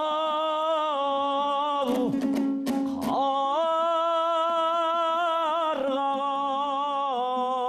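A singer holding long drawn-out notes with a wide vibrato in a Kazakh folk song, over a steady instrumental accompaniment. There are two long phrases with a short break about two seconds in.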